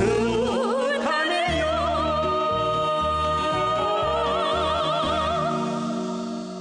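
A song: a singer's voice rises into a long held note with wide vibrato, over instrumental accompaniment with a regular bass beat.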